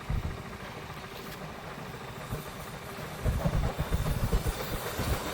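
Brecon Mountain Railway steam train approaching: a low mechanical rumble that grows louder about three seconds in.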